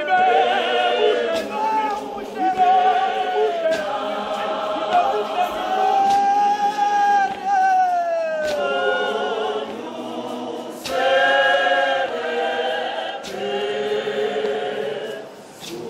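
A church congregation sings a hymn unaccompanied, many voices in harmony with long held notes. About halfway through, the singing slides slowly down in pitch, and a few sharp knocks sound at uneven intervals.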